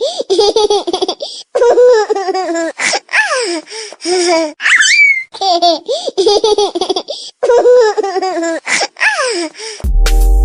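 Laughing ringtone: a baby's laughter clip looped over and over, each pass with a high squeaky rising-and-falling squeal, repeating about every six seconds. Near the end it cuts off suddenly into an electronic ringtone with a low thumping beat.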